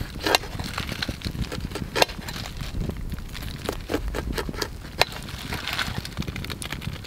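Knife slicing kernels off an ear of corn, the kernels dropping into a frying pan, with scattered sharp clicks.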